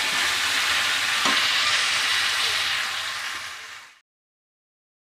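Spiced chicken and potatoes sizzling in oil in a kadai while being stirred with a metal spatula, with a sharp spatula click about a second in. This is the bhuna stage, the masala being fried until the oil separates. The sizzle fades and cuts off abruptly about four seconds in.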